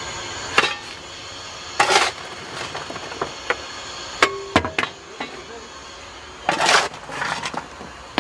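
Fireman's steel shovel working coal on a steam locomotive's footplate: several sharp clinks and knocks, with two longer scraping rushes, one about two seconds in and one later on, as the shovel digs into the coal.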